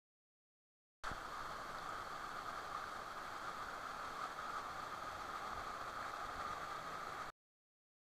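Steady rush of a forest waterfall cascading over rocks. It starts abruptly about a second in and cuts off suddenly near the end.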